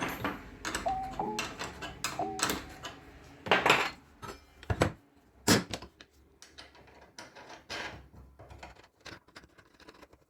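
A few notes of background music in the first couple of seconds, then small hard objects knocking and clattering on a work surface: several sharp knocks, the loudest in the middle, followed by lighter ticks.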